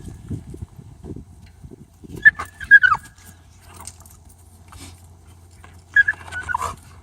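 Dog giving very high-pitched yelps in two bursts, about two seconds in and again near the end, each cry dropping in pitch at its close. The dog is protesting being held in a down-stay on a training lead, not crying from pain.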